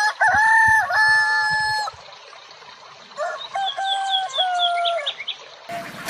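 A rooster crowing twice, each crow long and held, the second starting about three seconds in, with quick high bird chirps during the second crow.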